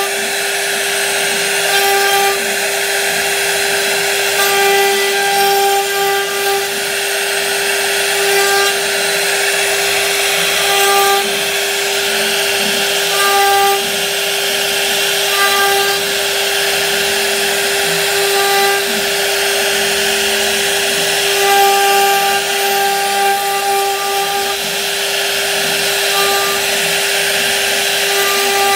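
CNC router spindle carving a relief pattern into a wooden board: a steady whine with the hiss of the bit cutting wood, and a higher tone that comes and goes every couple of seconds.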